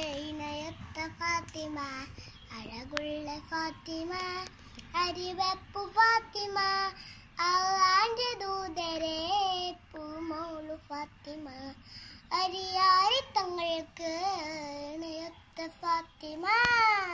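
A young girl singing a song unaccompanied, in phrases of wavering held notes, ending with a long note that rises and falls.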